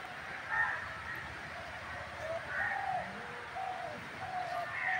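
Birds calling around the pond, short calls repeating about once a second.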